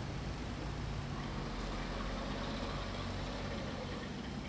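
Steady low background hum of a running machine, with no clicks or knocks over it.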